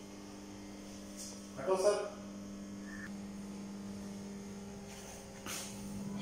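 Steady electrical hum, with a few faint clicks and a short higher-pitched sound about two seconds in.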